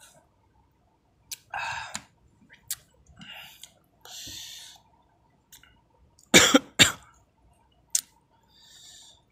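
A man coughing twice in quick succession about six and a half seconds in, the loudest sounds here, among softer mouth and breathing noises while eating. A light click near the end, like cutlery on the bowl.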